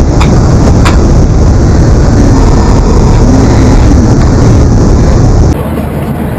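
Loud, steady rumble of jet airliner cabin noise, with a couple of sharp clicks in the first second; the level drops suddenly about five and a half seconds in.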